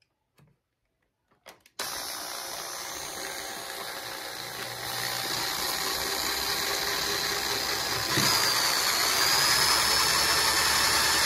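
Corded electric drill running as its bit bores a hole through the hard plastic shell of a toy. It starts about two seconds in and gets louder in steps partway through, with a steady high whine.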